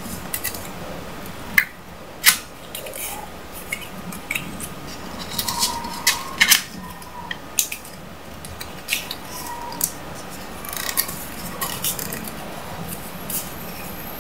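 A banknote being folded and creased by hand: irregular crisp paper crinkles and sharp clicks, with several louder snaps among them.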